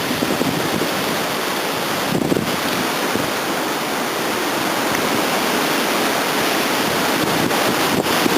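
Steady hiss of hurricane wind and rain, with wind buffeting the microphone and a brief louder gust about two seconds in.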